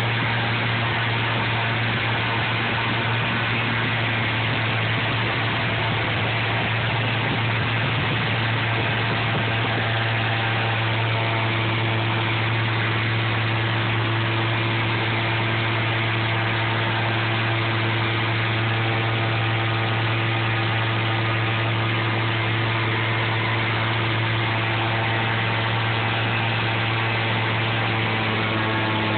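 Rotax 914 turbocharged flat-four engine of a SeaRey amphibian running steadily at take-off power, heard from inside the cockpit with a constant rush of air and water noise over it, through the run off the water and into the climb.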